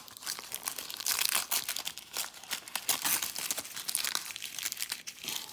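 Packaging wrapper crinkling and tearing as a trading-card starter deck is opened, an irregular crackle.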